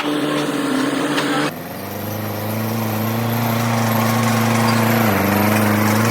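A machine's engine running steadily. About a second and a half in, the sound changes abruptly. The pitch then climbs slightly, and it steps down a little near the end.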